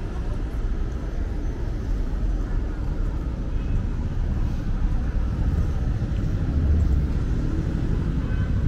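City street ambience: a steady low rumble of traffic and car engines, with faint voices of passers-by, swelling a little near the end.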